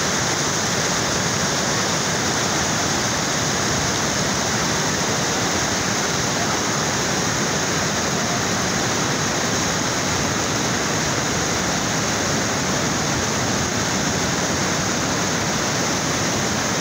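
Muddy floodwater from a river in flood pouring over a low weir, making a steady, unbroken rush of water.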